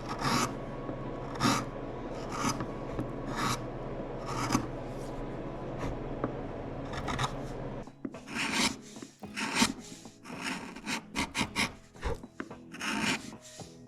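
A hand tool scraping and cutting wood in strokes about once a second, over a steady hum. About eight seconds in the hum stops and the strokes turn quicker and irregular.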